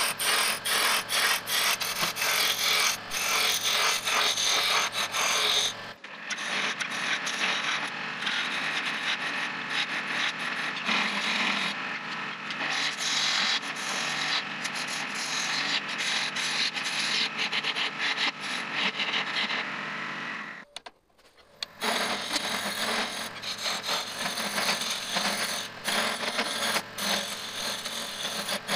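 Gouge cutting a spindle turning on a wood lathe: a continuous rough scraping hiss of the edge peeling shavings off the spinning wood, with quick irregular ticks. The sound changes abruptly about six seconds in and drops out briefly about three quarters of the way through.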